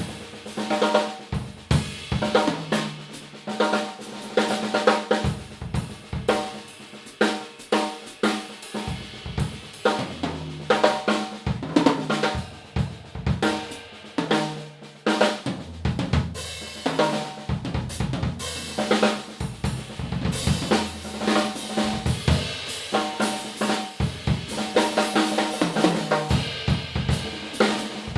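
Yamaha Oak Custom drum kit played continuously: snare, bass drum, hi-hat and cymbals in quick strikes, some low drums ringing out after they are hit, heard through room microphones.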